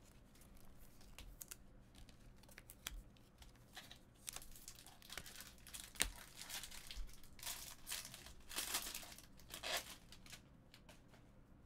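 Foil trading-card pack wrappers crinkling and tearing, with cards being handled, as packs are opened. Scattered light clicks give way to a denser stretch of rustling about four seconds in, with one sharp snap in the middle.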